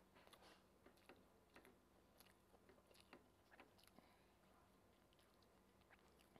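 Faint chewing of a mouthful of rice and kidney beans: irregular soft clicks and smacks, a couple each second.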